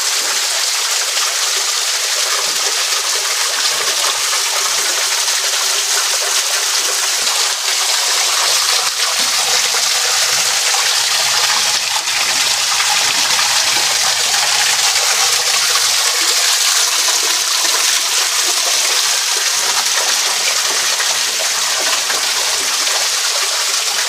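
Water pouring from a rock outlet and splashing down over wet rock, a steady hiss of falling water close to the microphone.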